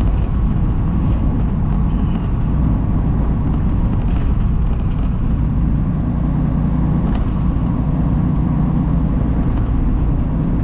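Semi truck cab noise while driving: a steady low rumble of the engine and tyres on the highway.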